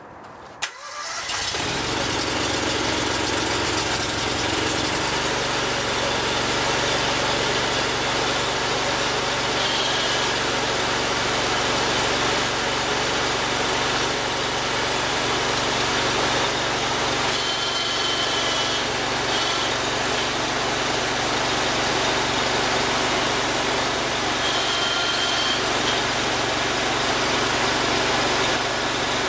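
Engine of a homemade bandsaw mill starts up about a second in, just after a sharp click, then runs steadily.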